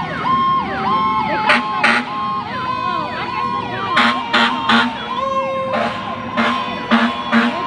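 Several emergency-vehicle sirens wailing at once, overlapping as they rise and fall. Short horn honks cut in: two about a second and a half in, then a string of them from about four seconds in.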